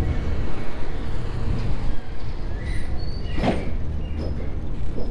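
Wind rumbling on an action camera's microphone while cycling, with a few brief high-pitched chirps or squeaks a little past the middle.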